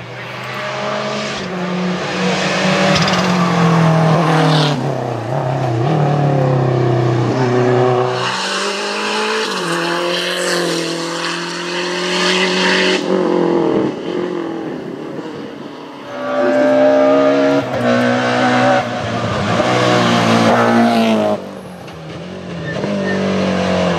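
Rally cars driven flat out past the microphone one after another, engines revving high and their pitch dropping at each gear change and lift-off.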